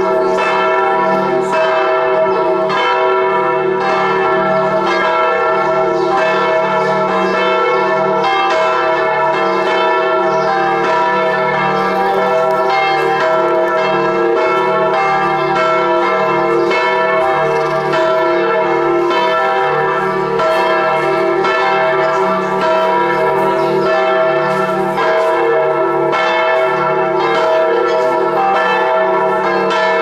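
Several church bells in a bell tower pealing, struck over and over so that their ringing tones overlap into a continuous clangour.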